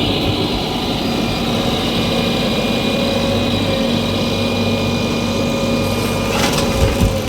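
Diesel engine of heavy machinery running steadily with a constant pitch, with a brief clatter near the end.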